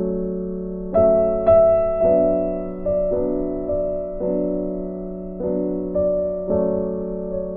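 Slow instrumental background music on piano: single notes and chords struck every half second to a second and left to fade, the strongest strikes about one to one and a half seconds in.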